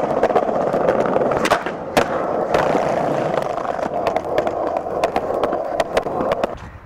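Skateboard wheels rolling steadily over concrete and brick paving, with scattered sharp clacks. The rolling fades near the end.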